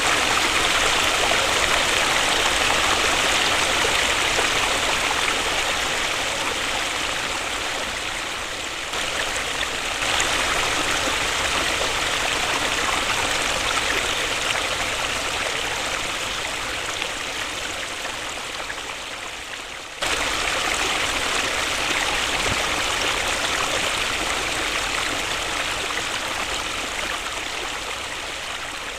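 Waterfall: a steady rush of falling water. It slowly fades a little and then jumps back to full loudness abruptly, twice, about a third and two-thirds of the way through.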